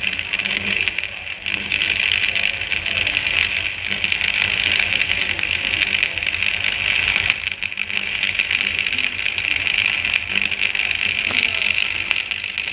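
Arc welding crackling steadily as a continuous running bead is laid along the excavator bucket teeth, with a faint low hum underneath. The crackle dips briefly about a second in and again about seven and a half seconds in.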